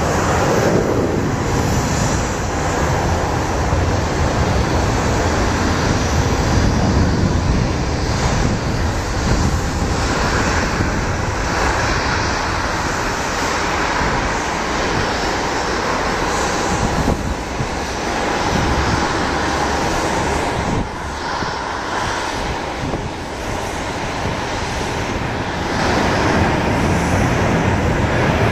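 Airbus A319-131 airliner's turbofan engines during a landing: a steady jet noise through the final approach and touchdown, carrying on as the aircraft rolls out along the runway.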